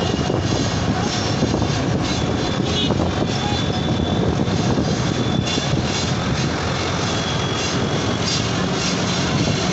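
Steady ride noise from inside a moving auto-rickshaw: its motor running and the road rumbling.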